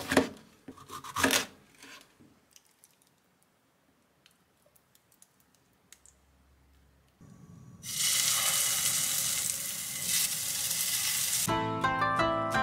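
A kitchen knife cuts through a green pepper onto a wooden cutting board: two loud cuts in the first second and a half. Faint soft clicks follow as minced meat is spooned into the pepper halves. About eight seconds in, food in a frying pan sizzles steadily for a few seconds, and plucked-string music starts near the end.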